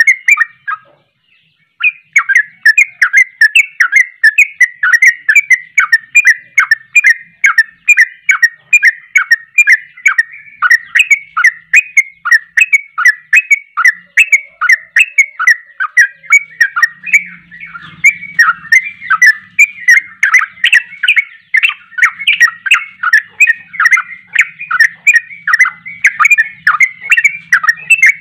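A yellow-vented bulbul (trucuk) sings a long, fast, nearly unbroken run of short chattering notes, several a second. This is the rolling 'ropel' song of an excited bird. It breaks off briefly about a second in, then runs on without a stop.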